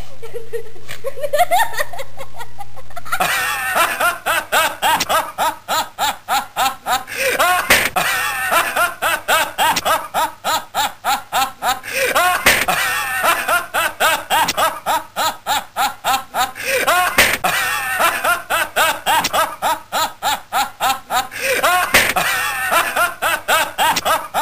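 A person laughing: a softer giggle at first, then from about three seconds in a continuous run of quick, rhythmic 'ha-ha' bursts, several a second, whose pattern recurs every few seconds like a looped laugh recording.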